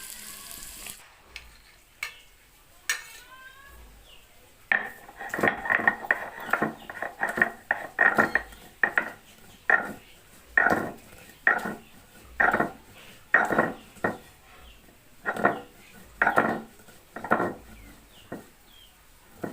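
Cashew nuts being pounded into a paste: after a few scattered clicks, a long run of sharp, ringing clinks, about one or two a second, that stops shortly before the end.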